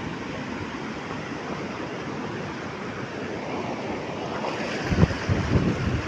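Rough sea waves washing and surging with a steady rush of wind. About five seconds in, wind begins buffeting the microphone in low, gusty rumbles.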